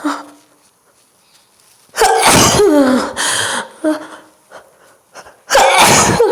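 A woman's induced sneezes: two forceful sneezes, the first about two seconds in and the second about five and a half seconds in. Each is a loud, noisy blast with a voiced cry that falls in pitch.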